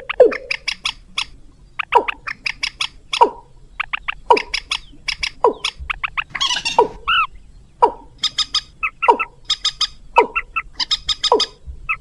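Bird-lure recording of rail calls from a swamphen and watercock lure track: short downward-swooping calls about once a second, each with rapid clicking notes. A harsher squawk comes about six seconds in.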